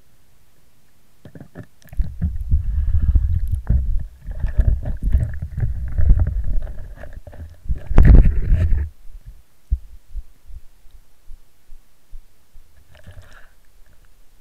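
Handling noise picked up by the mini camera on a model speedboat as the boat is lifted out of the water and carried: an irregular low rumbling with many knocks for several seconds, the hardest knock about eight seconds in. After that come only a few faint clicks.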